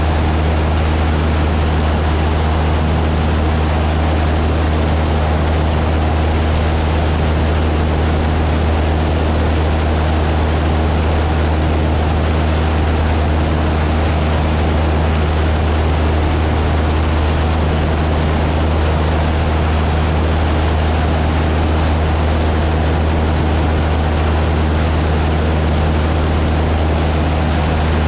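Cessna 172's piston engine and two-bladed propeller running in flight, a loud, steady drone that does not change.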